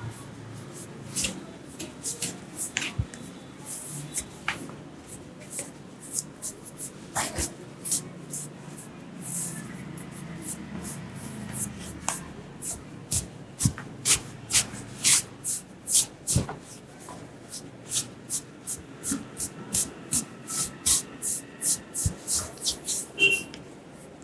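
Massage percussion: the barber's hands slapping and tapping on the client's head and back, sharp strikes that come scattered at first, then in a quick even run of about two to three a second.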